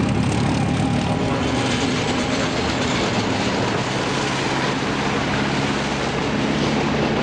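Diesel locomotive hauling a train of wagons along the rails: a steady engine hum under a dense, even rumble of wheels and wagons.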